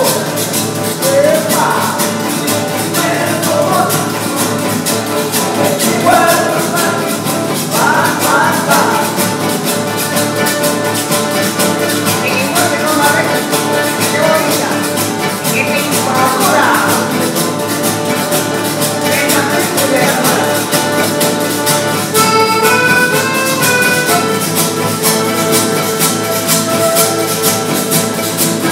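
Live Latin American folk band playing: button accordion, acoustic guitar and a metal güira scraped in a fast, steady rhythm, with a man singing over the first two-thirds. Near the end the voice drops out and the accordion carries the melody.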